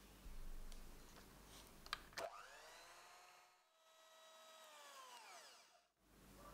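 Electric hand mixer beating egg whites, faint. About two seconds in there are two clicks, then its whine rises in pitch, holds, and falls away near the end.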